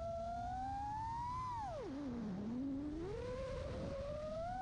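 FPV quadcopter's motors whining in flight, the pitch rising a little, then falling steeply about two seconds in as the motors spin down, and climbing back up a second later as they spin up again. A steady low rush runs underneath.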